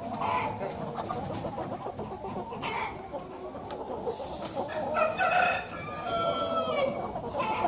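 A flock of broiler breeder chickens clucking and calling continuously. Louder calls come about five seconds in, followed by a drawn-out crow from a rooster.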